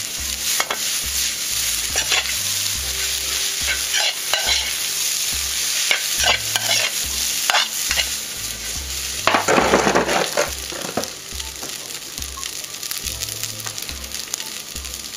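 Rice stir-frying in a metal wok: a steady sizzle with the metal spatula repeatedly scraping and striking the pan, loudest about nine to ten seconds in.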